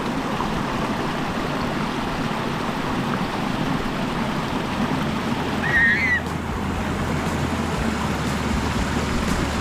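Steady rushing of water from a small waterfall and creek cascade. A brief high chirp about six seconds in, and a low steady hum joins near the end.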